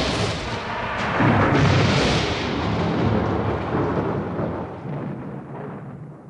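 Thunder: a loud rolling rumble that swells again about a second in, then slowly fades away, growing duller toward the end.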